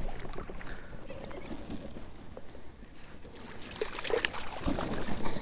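A small hooked bass being reeled in beside a kayak, splashing and thrashing at the surface during the last second or two.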